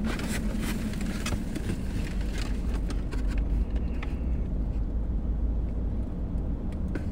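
Steady low rumble of a car idling, heard from inside the cabin, with faint scattered clicks and rustles of food containers being handled.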